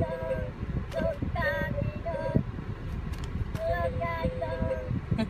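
Talking Minion Happy Meal toy with a guitar singing through its small built-in speaker. A high-pitched Minion voice sings short phrases of a song, with brief gaps between them.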